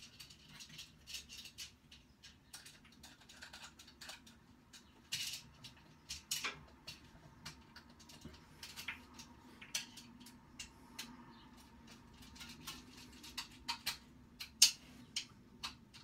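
Faint, irregular clicks and scrapes of a screwdriver tightening the terminal screws of a plastic ceiling pull cord light switch and handling its wires, with one sharper click near the end.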